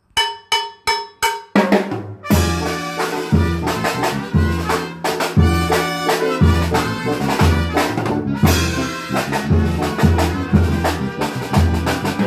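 Instrumental introduction to a song played by a small band of electronic keyboard with a drum beat and saxophone. It opens with four short separate notes, then the full band comes in about two seconds in with a steady beat and a bass note about once a second.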